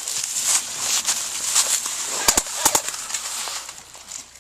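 Footsteps crunching through snow, then about two seconds in four sharp airsoft gun pops in two quick pairs.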